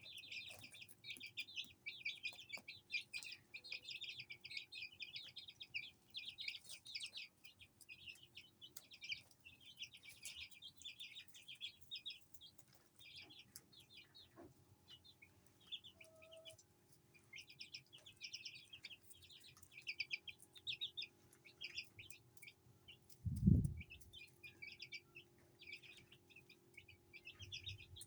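Aseel chicks peeping almost without pause in quick, high chirps. A single dull thump late on is the loudest sound.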